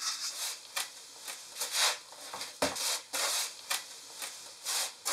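Hands kneading and pressing crumbly suhama dough of roasted-soybean flour, rice syrup and chopped nuts against a flour-dusted copper bowl: soft, gritty rubbing and scraping strokes, irregular, about three a second.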